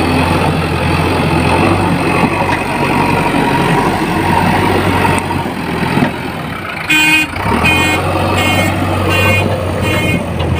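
A JCB backhoe loader's diesel engine running heavily at close range. From about seven seconds in, a repeated electronic beeping joins it, about two beeps a second.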